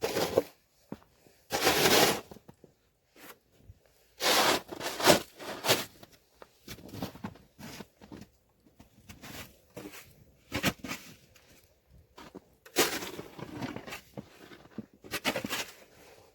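Snow shovel scraping and scooping snow in irregular strokes, each about half a second to a second long, with crunching in between.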